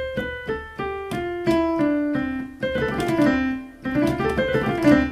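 Keyboard with a piano sound playing the C major scale one note at a time, stepping down in even steps, with a few notes climbing again near the end.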